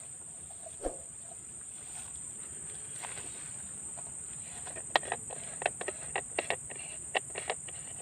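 Crickets or other insects keep up a steady, high-pitched buzz. About halfway through, a run of short, sharp clicks or chirps starts up and repeats irregularly.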